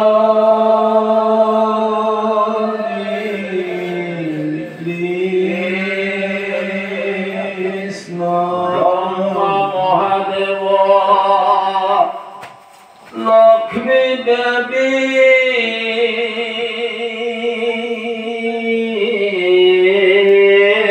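Congregational chanting of Assamese Vaishnavite naam (pal-naam), voices holding long, slowly gliding notes together. It breaks off briefly about twelve seconds in, then resumes.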